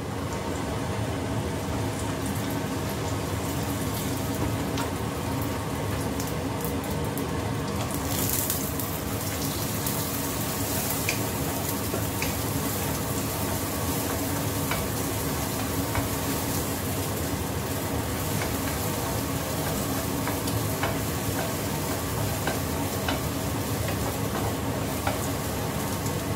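Beaten egg frying in hot oil in a non-stick pan, sizzling steadily, while a wooden spatula scrapes and taps lightly as the egg is broken up.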